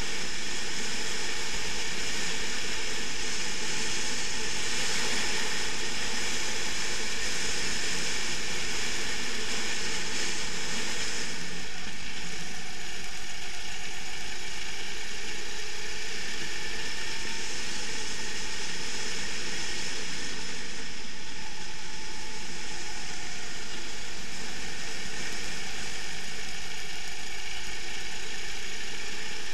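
Sodi racing kart's engine running hard at racing speed, heard from an onboard camera as a steady, dense mechanical buzz. The tone shifts a couple of times as the kart goes through the corners.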